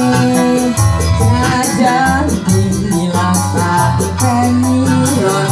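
Orkes band music: a melody over bass and a quick, even beat of high percussion strikes, played loud and without a break.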